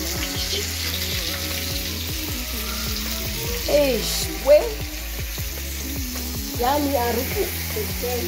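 Omena (small silver cyprinid fish) sizzling in hot oil in a frying pan as tomato slices are spooned in, with light scrapes and clicks of a metal spoon on the plate. Short pitched sounds cut in about halfway through and again near the end, the louder one halfway.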